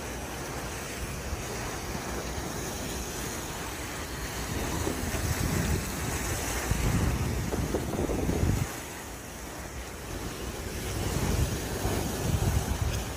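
Choppy bay waves washing and splashing against shoreline rocks, swelling in louder surges about halfway through and again near the end, with wind rumbling on the microphone.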